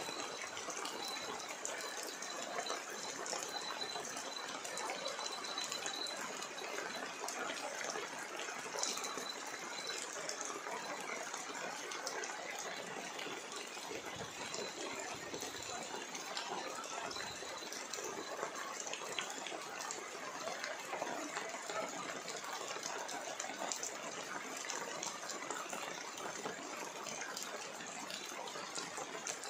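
A steady, even wash of water noise with scattered small ticks. A faint, thin high tone comes and goes during the first ten seconds.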